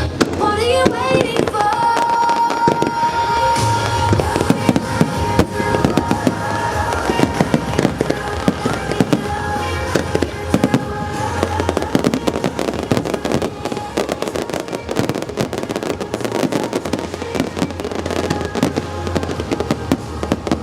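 Aerial fireworks bursting and crackling densely throughout, with a few rising whistles at the start, over accompanying music.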